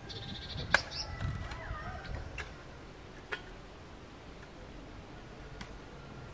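Birds chirping and trilling over the first two seconds, with a few sharp clinks and knocks of garden spades and shovels digging into soil, the loudest about a second in and the rest spread out over the next five seconds.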